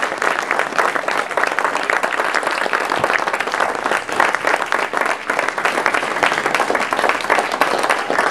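Small crowd applauding steadily, many hands clapping.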